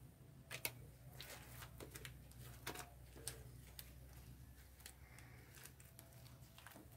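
White slime with makeup mixed in being stretched and kneaded by hand, giving faint sticky clicks and pops at irregular intervals.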